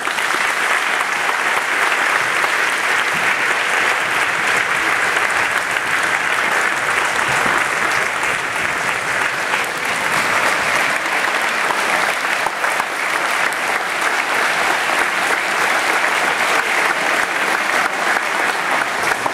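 A large audience applauding: dense, steady clapping that starts suddenly and keeps up without a break.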